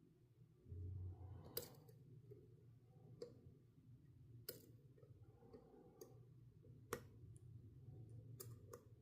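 Faint, scattered clicks of a lock pick and tension wrench working inside a Master Lock padlock, about seven at uneven intervals, over a low hum that swells briefly about a second in.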